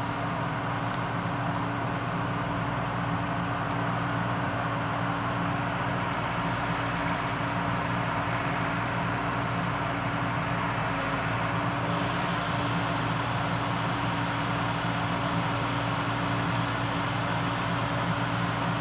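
Diesel engine of harvest machinery running steadily under load with a constant hum. About twelve seconds in, a higher hiss joins and stays.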